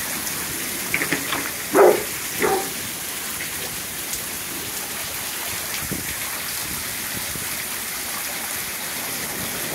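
Steady rain falling on a patio, yard and pool during a thunderstorm, heard from under a covered patio. A brief voice sounds about two seconds in.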